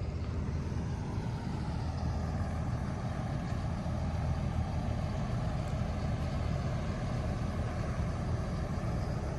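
Engines of heavy construction machinery running steadily, a low even rumble.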